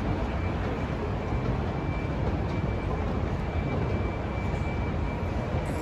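Steady low rumbling ambient noise of a large airport terminal hall, with a faint high steady tone running through it.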